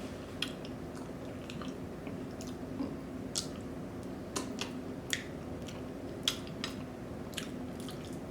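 Close-miked chewing of soul food eaten by hand, with irregular wet mouth clicks and smacks over a steady low hum.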